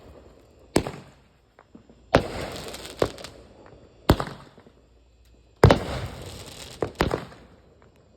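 Consumer nine-shot fireworks cake going off: about seven sharp bangs, irregularly spaced about one to one and a half seconds apart, two of them close together near the end. Each bang trails off over about a second.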